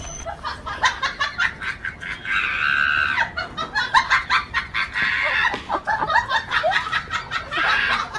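Chickens squawking and clucking in a scuffle, with many quick sharp scuffling noises throughout.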